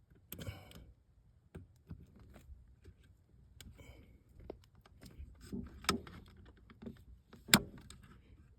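Scattered light clicks and knocks of hands working wires into the push-in terminal block of a Honeywell zone damper actuator, with a brief rustle near the start and a sharper click near the end.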